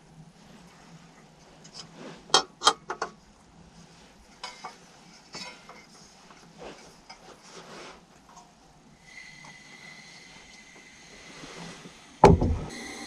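Camp cooking gear being handled: scattered light knocks and clinks, with a louder run of clinks a couple of seconds in. About nine seconds in a steady hiss with a thin tone sets in, and near the end comes a single loud, deep thump.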